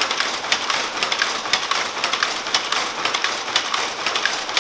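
Jacquard silk loom running: a dense mechanical clatter with sharper clacks about twice a second.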